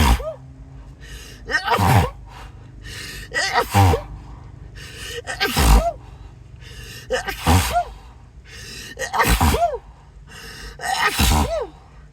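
A person's sneezing fit: a rapid run of about six sneezes, roughly one every two seconds, each a catching, rising gasp followed by a sharp loud sneeze.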